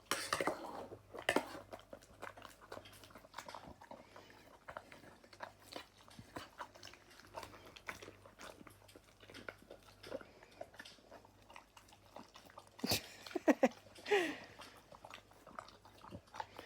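German Shepherd eating roast chicken and potatoes from a bowl: a steady, irregular run of chewing and crunching clicks, with a sharper knock and a brief pitched sound about 13 seconds in.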